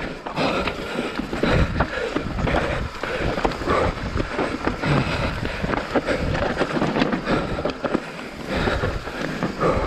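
Full-suspension mountain bike descending fast over a rocky dirt trail: tyres crunching over dirt and stones and the bike rattling and knocking over bumps, with wind rushing on the microphone.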